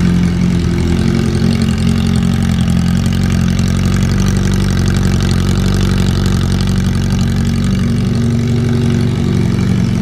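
Suzuki Bandit motorcycle's inline-four engine idling steadily, exhausting through the bare header pipe with no silencer or tip fitted.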